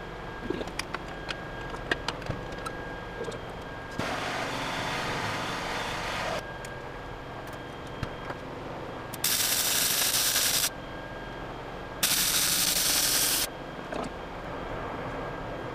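Wire-feed welder laying short weld beads: three bursts of crackling arc hiss, each a second and a half to two and a half seconds long. The first is quieter and the last two are louder. Scattered light clicks fall between the bursts.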